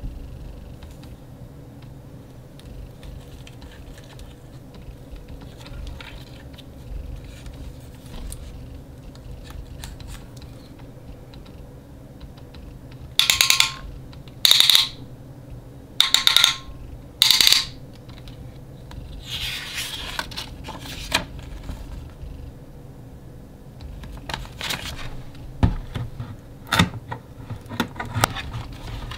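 Hands handling plastic lightstick parts and packaging: soft rustles and clicks, then four loud, short scrapes about a second and a half apart in the middle. Near the end, scissors snip through a cardboard box with sharp clicks.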